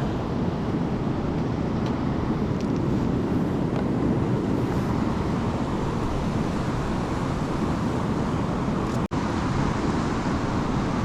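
Steady rushing of a fast river, an even low roar that cuts out for an instant about nine seconds in.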